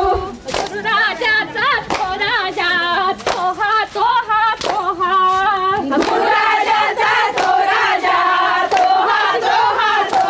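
A group of women singing a folk song together, with sharp hand claps keeping time through it.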